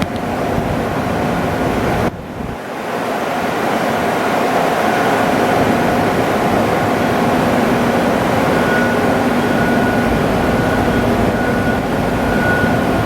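Okuma Cadet L1420 CNC turning center running under power: a steady mechanical whirr with several whining tones, dipping briefly about two seconds in, and a higher whine growing stronger in the second half.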